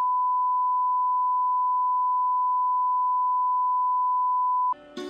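Steady single-pitched test tone that goes with colour bars, cutting off near the end. Music with plucked strings starts just after it.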